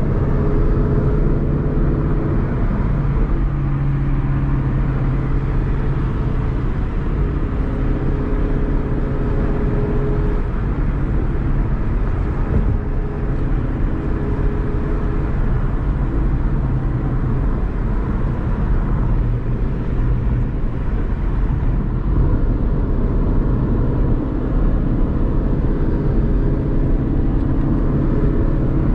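Ford Mustang GT's 5.0 V8 with a Corsa Extreme cat-back exhaust, cruising at a steady speed and heard from inside the cabin: a steady low exhaust note over road noise.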